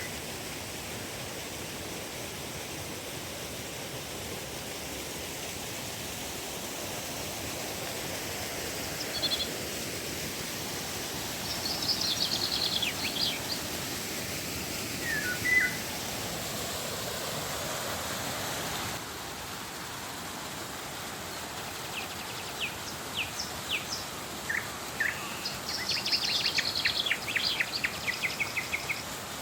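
Steady rush of flowing river water with birds calling over it: a few short whistled notes in the first half, then a busier run of chirps and quick trills near the end.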